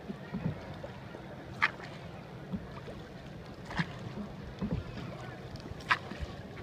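Oars of a hand-rowed boat working in a slow, even rhythm. Each stroke is a short, sharp sound, coming about every two seconds, three times.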